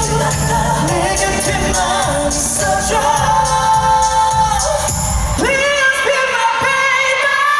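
Live K-pop performance over a concert PA: backing track with a heavy beat and male singing. About five and a half seconds in the beat drops out, and high rising cries come through, the kind fans scream in the crowd.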